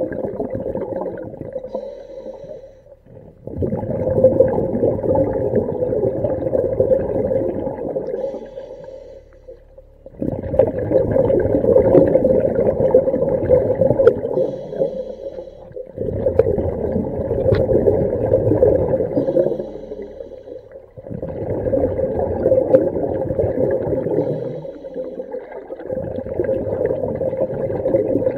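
A diver breathing underwater through a DIY hookah rig's regulator: exhaled bubbles gurgle and rush in long stretches, broken by short pauses about every five to six seconds.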